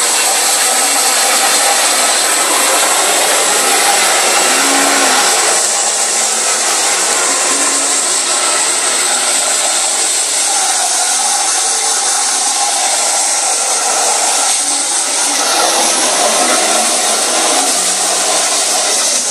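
Handheld hair dryer blowing hard and steadily, its airflow shifting a little as it is moved around the head, then switched off at the end.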